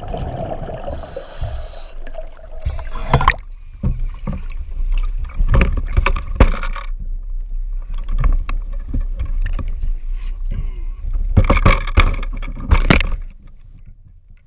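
Muffled underwater rumbling and bubbling, then a diver breaking the surface about three seconds in. Water splashes and sloshes against a boat's hull, with a loud cluster of splashes and knocks near the end as the diver reaches the boat.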